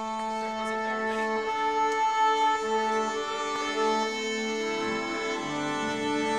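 Chamber string ensemble of violins and cello playing slow, long held notes; a lower part joins about five seconds in.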